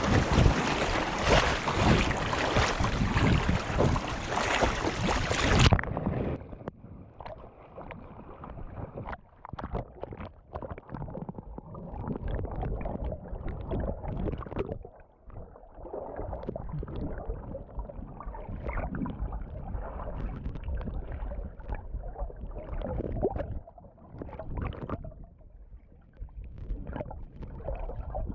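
Surf and wind buffeting the microphone, then about six seconds in the sound turns abruptly dull and muffled as the microphone goes underwater: water sloshing and gurgling around it in irregular surges.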